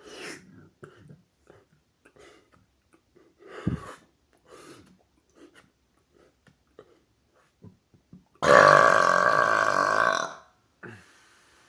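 A man's long, loud burp lasting about two seconds, coming near the end after several faint short sounds. It is a powerful, pitched burp that he forces out, fighting back against it.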